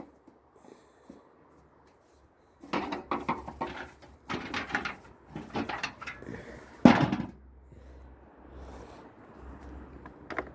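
Metal and plastic parts of a tumble dryer knocking and clattering as it is pulled apart by hand, a quick run of knocks ending in one loud bang.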